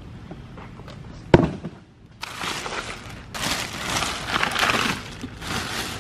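A sharp knock about a second in, then plastic bag and paper wrapping crinkling and rustling as they are pulled open by hand.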